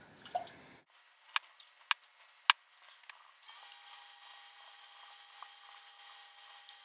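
Pastry brush knocking against a small metal saucepan of syrup: three sharp clicks over about a second, then faint light ticks and scraping as the brush works, under a faint steady hum.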